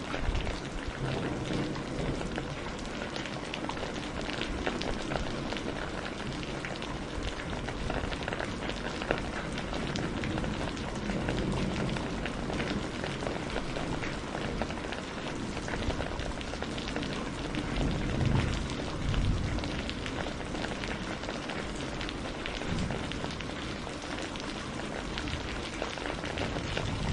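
Steady rain falling, a dense even patter, with a few deeper low surges, the loudest about eighteen seconds in.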